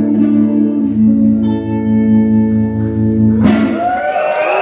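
A live blues band holds a sustained chord with electric guitar to the fore, the notes ringing steadily. About three and a half seconds in, the held chord breaks off abruptly and gives way to a noisier wash with sliding pitches.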